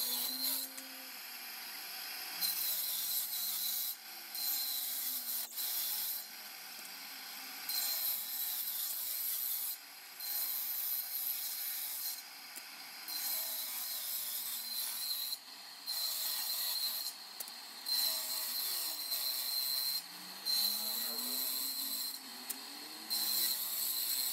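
Homemade bench-mounted circular table saw ripping wooden boards lengthwise. A high, steady whine runs throughout, with repeated bursts of cutting noise, each a second or two long, as boards are fed through the blade.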